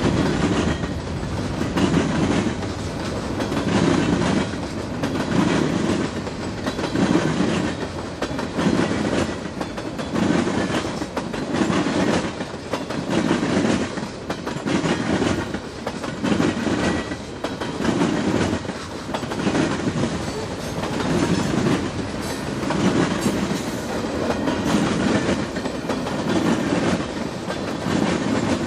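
Freight train cars rolling past, their wheels clacking in a steady rhythm about once a second.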